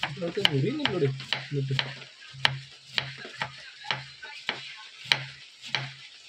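A knife chopping cabbage on a cutting board: sharp, evenly paced strokes, about two or three a second, each landing with a knock on the board.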